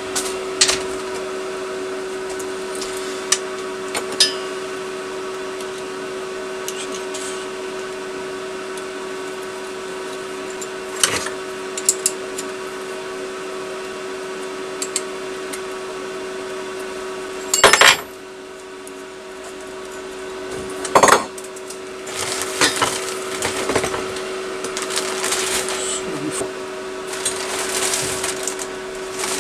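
Metal tools and parts being handled on a workbench: scattered clinks and knocks, two louder clatters a little past halfway, and a busier run of rattling near the end, over a steady mechanical hum.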